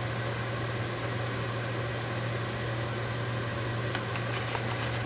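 Steady low mechanical hum with a soft even hiss, as of a running kitchen appliance or fan.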